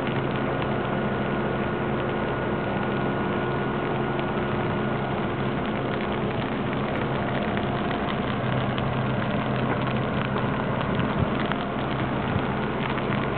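Burning dry grass crackling with many small sharp pops over the steady hum of an idling vehicle engine.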